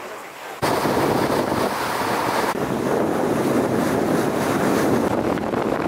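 Wind blowing across the microphone and water rushing past the hull of a small boat under way. It cuts in abruptly about half a second in and stays steady and loud.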